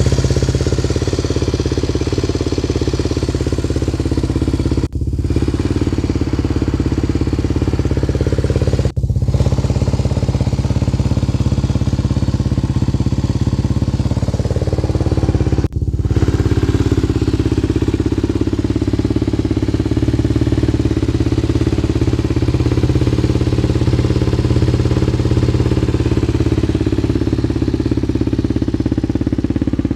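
Yamaha TT250R's single-cylinder four-stroke engine running steadily through an aftermarket OZ Works silencer. Its note dips for a moment a little past halfway, and the sound breaks off for a split second three times.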